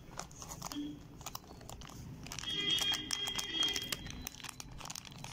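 Metallised plastic potato-chip packet crinkling and crackling as it is handled and folded open. For about a second and a half midway a high-pitched background sound rises over the crinkling.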